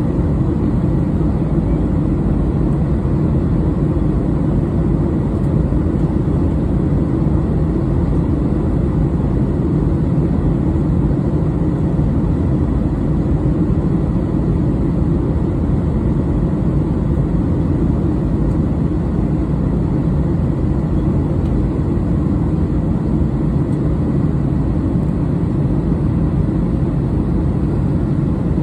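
Steady roar inside a jet airliner's cabin in flight, the engines and rushing air a deep, even rumble with a faint thin hum above it.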